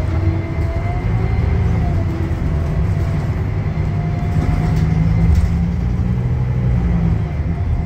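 Scania K310UB bus's rear-mounted five-cylinder diesel and ZF Ecolife automatic gearbox, heard from the rear seats while the bus is under way: a steady low rumble with a faint whine.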